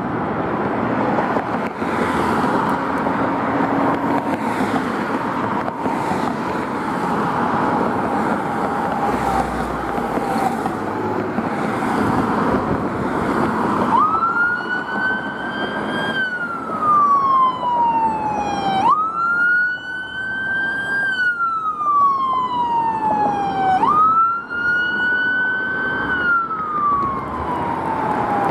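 Emergency vehicle engines running as fire apparatus pull out. About halfway through, a siren starts wailing in three cycles, each a quick rise in pitch followed by a slower fall.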